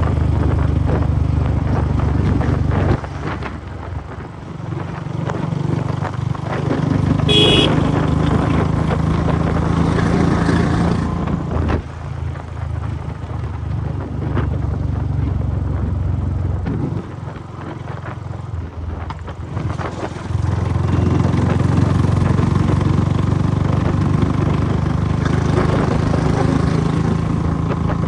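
Royal Enfield Bullet 500's single-cylinder engine and exhaust running hard at highway speed, with the throttle eased off a few times and opened up again about twenty seconds in. A short high-pitched beep sounds about seven seconds in.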